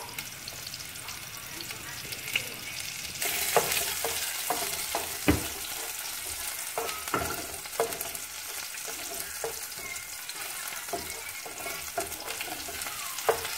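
Food sizzling in a small non-stick pan while a wooden spoon stirs it, knocking against the pan at irregular moments. The sizzle gets louder about three seconds in.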